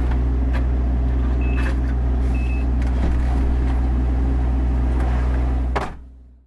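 DAF XF105.460 truck's 12.9-litre straight-six diesel idling steadily, heard from inside the cab. There are a few clicks, two short high beeps about a second apart early on, and the sound fades out near the end.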